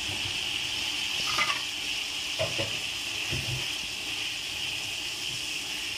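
Fried keema (minced meat in oil and masala) sizzling steadily in a non-stick frying pan, with a few short knocks from a wooden spatula about one and a half, two and a half and three seconds in.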